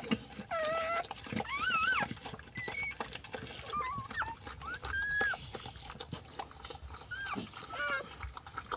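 Newborn Brittany puppies squealing and crying in about eight short, high calls that bend up and down, with soft wet clicking from the mother licking them clean.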